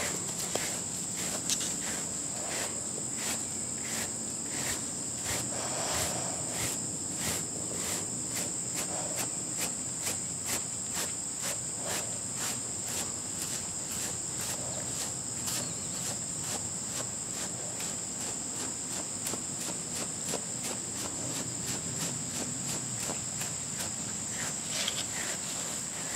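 Steady high-pitched insect chirring, pulsing about three times a second, over the soft rubbing of a Kong rubber brush stroking a short-haired dog's coat.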